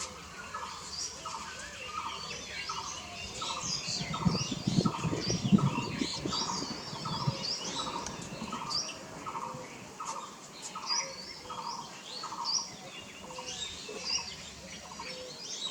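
Birds calling: a steady series of repeated mid-pitched notes, about two a second, with higher chirps over them. A low rumble swells between about four and seven seconds in and is the loudest part.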